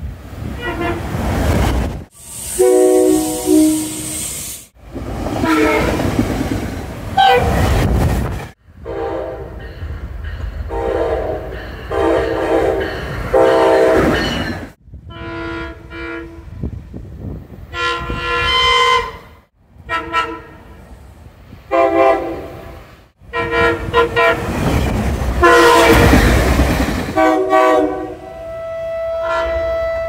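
SEPTA Regional Rail commuter trains sounding their multi-note chime horns in long and short blasts, a horn show. Between the blasts come the rumble and rush of trains passing close by. Several clips are cut together, so the sound breaks off abruptly a few times.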